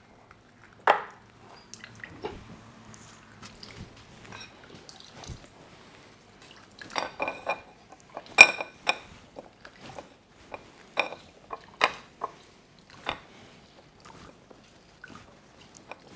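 Kitchen clatter of utensils and dishes: scattered knocks and clinks against pots and bowls, the loudest a ringing clink about eight seconds in.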